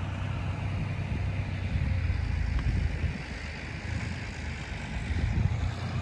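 Tractor engine running with a low, steady drone while it drives a reaper cutting wheat.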